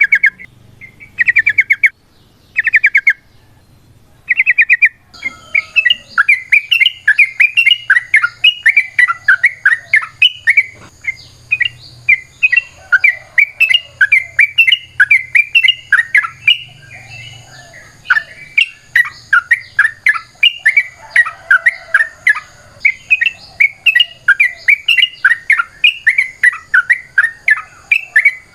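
Yellow-vented bulbul singing: a few short rattling bursts of rapid notes, then from about five seconds in a long, unbroken run of quick chattering notes, the long rapid song that bird keepers call ropel.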